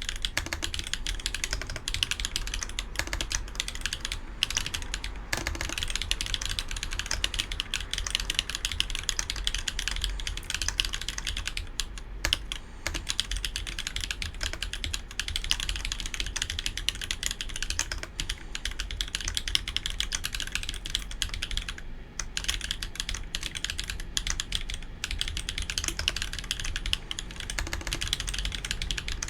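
Steady, fast typing on the Evelynn mechanical keyboard with YOK Holy Panda tactile switches on 70 g springs: a dense run of key clicks and clacks, with brief pauses about 12 and 22 seconds in.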